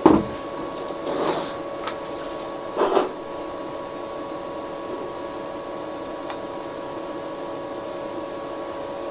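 Geeetech A20 3D printer running with a steady hum of several fixed tones from its fans and motors while it is heated for filament loading. A few short handling noises come in the first three seconds.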